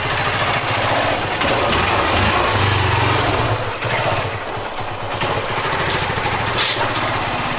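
Honda Unicorn 160's single-cylinder four-stroke engine running as the motorcycle is ridden slowly, with a low, even beat that rises briefly about three seconds in.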